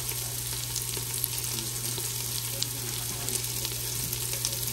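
Sliced onions frying in olive oil in a large pot: a steady sizzle with scattered small crackles, over a steady low hum.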